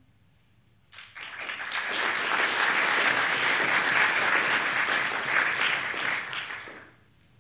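Audience applauding at the close of a talk: the clapping starts about a second in, swells to a steady level, and dies away near the end.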